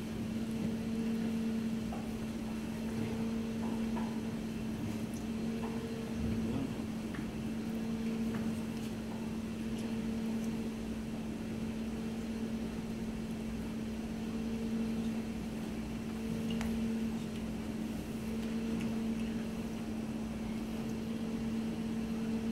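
Steady low mechanical hum from kitchen equipment, with a fainter higher tone that comes and goes every couple of seconds. Faint small ticks and rustles of hands working cooking twine around the meat sit over it.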